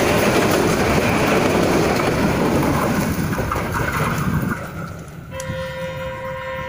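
Passenger train carriages rolling past close by, wheels running loudly on the rails. About four and a half seconds in the rumble drops away, and a second later a steady train horn starts and holds on one pitch.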